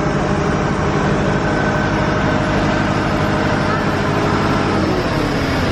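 Tractor engine running steadily under load as it pulls a passenger ride, a loud low rumble with a steady hum.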